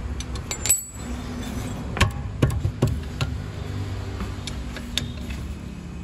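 Scattered metallic clinks and knocks of hand tools working on a car's rear brake, over a steady low hum.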